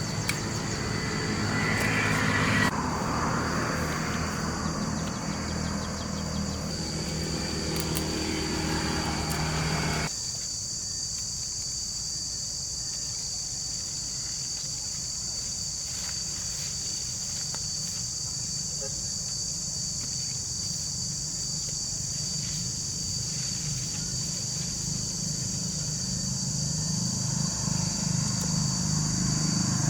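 Steady high-pitched insect chorus. Over it, an engine hums for about the first ten seconds, then cuts off; another engine grows louder near the end.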